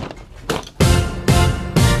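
Background music with a steady beat of about two hits a second, coming in under a second in after a short quiet gap.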